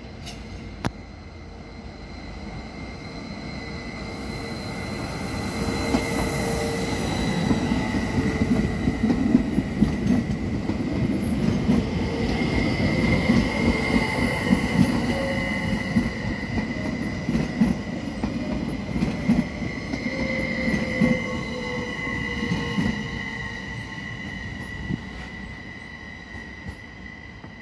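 SBB RABe 522 (Stadler FLIRT) electric multiple unit rolling past the platform as it arrives, wheels knocking over the rail joints under a steady high squeal. It grows louder as it passes, at its loudest about ten seconds in, then fades as it moves off, with a motor whine sliding down in pitch near the end as it slows.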